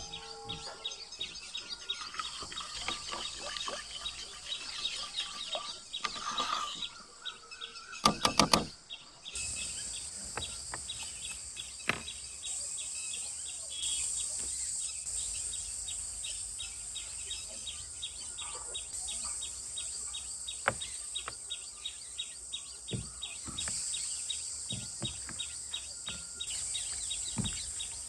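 Birds chirping over a steady high outdoor insect chorus, with scattered small clicks and rustles of hands tossing salted eggplant slices in a metal basin; a short cluster of loud knocks comes about eight seconds in.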